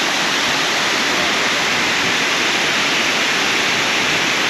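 Kuang Si waterfall: a loud, steady rush of falling water, with no pitch or rhythm, that cuts off suddenly at the end.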